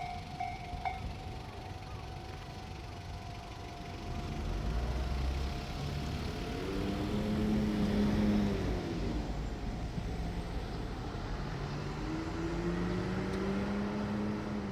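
Level-crossing warning bell ringing, cutting off about six seconds in. Then a diesel railcar's engine revs up and falls back, and revs up again near the end.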